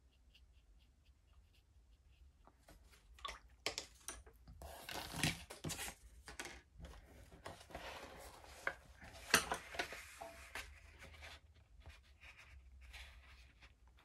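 Paper and art supplies being handled on a desk: rustling and sliding of watercolour paper and a spiral sketchbook, with irregular light knocks as items are picked up and set down.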